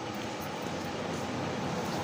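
A car driving past on the road, its engine and tyre noise slowly building as it approaches.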